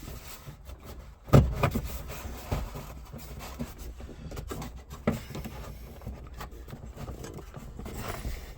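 A glove box liner being worked into a dash opening, scraping and rubbing against the metal, with scattered knocks: the loudest about a second in and another about five seconds in.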